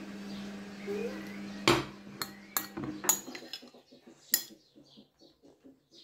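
A metal spoon clinking against a dish: several sharp clinks, the loudest about two seconds in. A steady low hum underneath cuts off about halfway.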